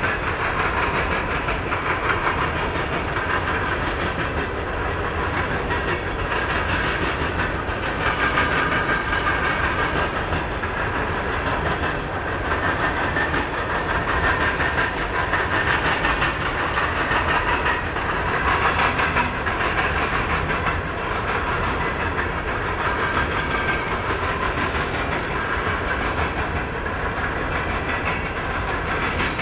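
Freight train of autorack cars rolling past: a steady rumble and clatter of steel wheels on the rails, with a high hissing noise over it.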